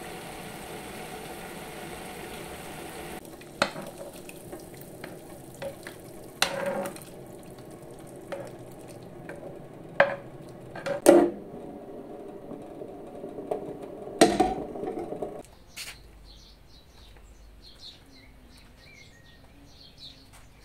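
A frying pan sizzling, then a metal spoon scraping and knocking against the pan as the beetroot-and-carrot sauté for borscht is spooned into the soup pot. Several sharp knocks are heard, the loudest about halfway through. A little past the middle the cooking sounds stop, leaving a quieter background with faint high chirps.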